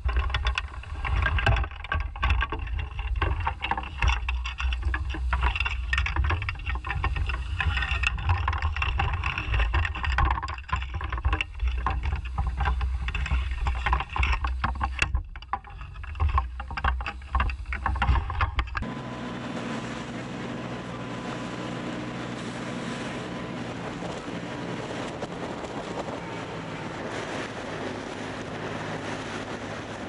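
Sound of a boat at sea: a gusty low rumble, like wind buffeting the microphone, with many sharp knocks and slaps. About two-thirds of the way through it cuts to a steadier engine drone with a low hum.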